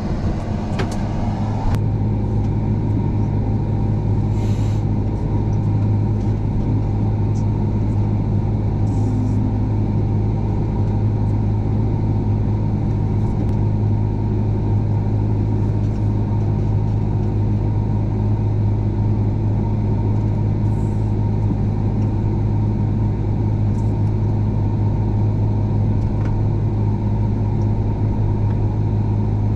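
Combine harvester engine running steadily: an even low drone with no change in speed, with a few faint brief hisses.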